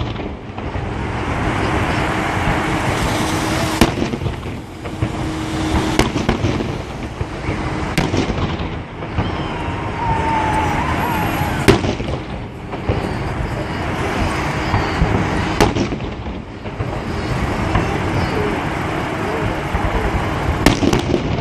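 Fireworks salute: aerial shells bursting with sharp bangs every two seconds or so, over a continuous noisy haze.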